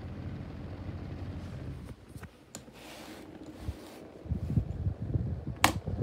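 A Schallen 12-inch desk fan running with a low hum and scratching noises from its bad bearings. After about two seconds it quietens and a few clicks come. From about four seconds in a rougher, louder scraping rattle builds, with a sharp click near the end.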